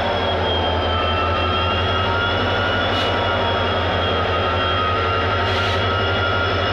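EMD WDP4-class diesel locomotive passing slowly while pulling out, its engine running with a steady low drone and a high whine. Two short hisses come about three seconds and five and a half seconds in.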